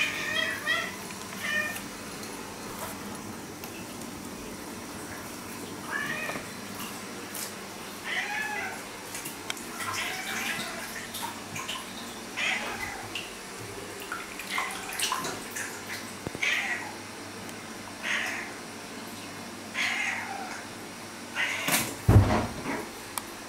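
An orange-and-white house cat meowing over and over, a dozen or more short calls spaced a second to a few seconds apart, appealing to its owner. Near the end there is one loud thump.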